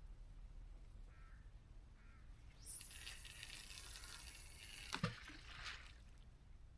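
A rod being cast: fishing line hisses off the reel for about two seconds, then stops with a sharp knock.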